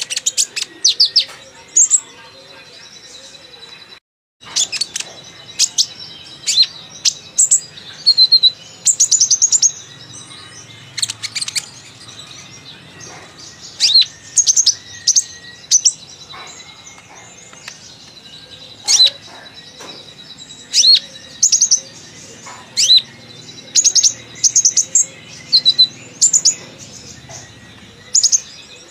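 Kolibri ninja sunbird singing in a chatty run of high, sharp chirps and quick trills in irregular bursts, with a brief total drop-out in the sound about four seconds in.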